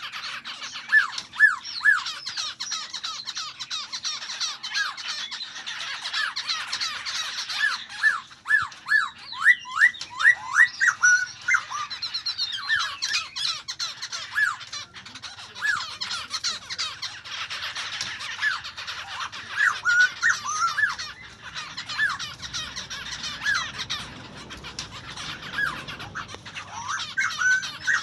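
A songbird calling over and over in quick runs of short, sharp notes that each slide downward, with a steady higher twittering of other birds behind it.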